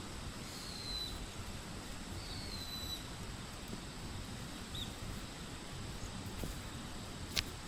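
A bird calling with short falling whistles: three in the first three seconds and a brief one near five seconds. Under them runs a low rumble and a thin, steady high tone, and a single sharp click comes near the end.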